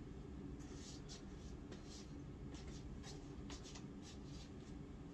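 A string of faint, brief rustles and scuffs from a person shifting and turning while posing, over a low steady room hum.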